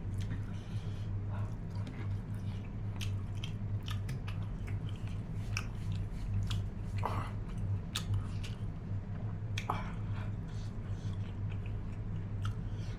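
A person chewing and biting food close to the microphone, with irregular wet mouth clicks and smacks, over a steady low hum.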